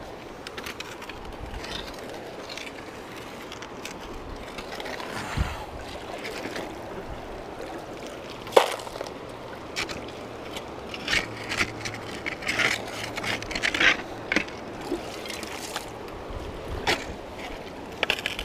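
Shovel digging into gravelly creek-bank dirt, its blade scraping and knocking on rocks in scattered strokes, with one sharp strike about halfway through and a run of scrapes after it, over the steady rush of a creek.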